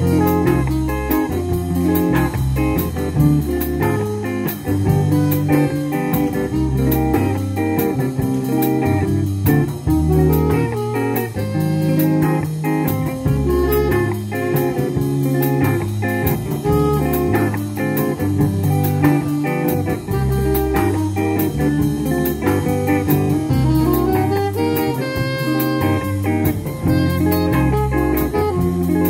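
Small live jazz-blues band playing: electric guitar, saxophone, electric bass and drum kit, with a bass line moving note by note.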